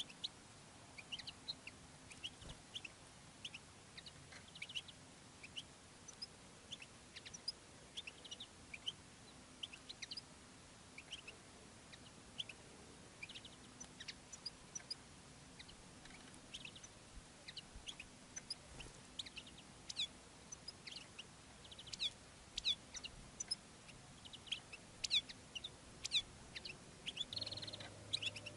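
European goldfinches chirping and twittering faintly in quick, scattered high notes that come thicker in the last third: a caged male's courtship song to a wild female.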